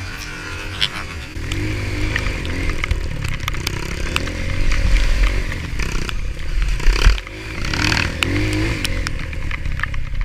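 Trail motorcycle engine riding over rough ground, revving up and down repeatedly, with scattered sharp knocks and clatter.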